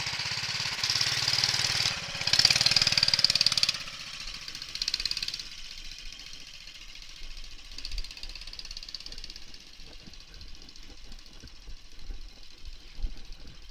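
Motorcycle engine running loud and revving for about the first four seconds, then dropping away to a faint drone as the bike rides off.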